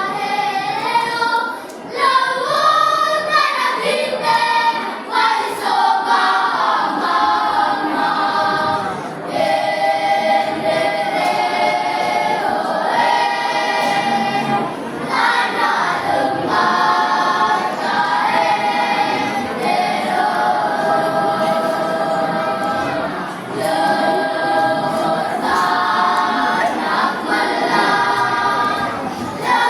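Primary-school children's choir singing in several parts, holding sustained chords with short breaks between phrases.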